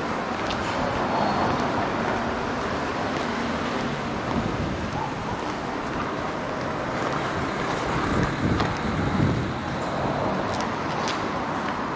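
Steady city street traffic noise, swelling briefly about eight to nine seconds in.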